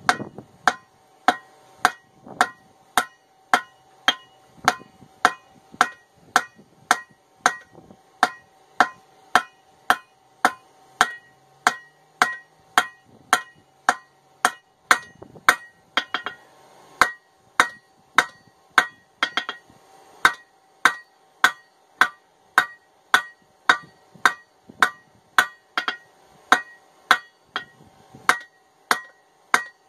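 Hand hammer striking a hot ball peen hammer head held in tongs on an anvil, about two blows a second, each blow ringing. This is hot steel being squared up, the first step before drawing it out.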